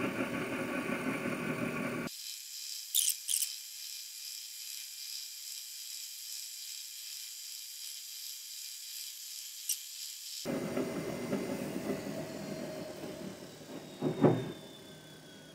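Benchmaster horizontal milling machine's spindle running while a carbide boring bar takes a light five-thousandths cut on the spindle nose, a steady high-pitched whine over the machine noise. Near the end the whine drops slightly in pitch as the machine slows, with one sharp knock.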